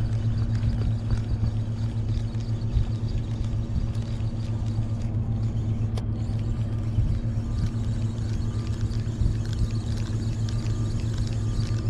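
A steady low engine hum running at a constant pitch, with no change in speed.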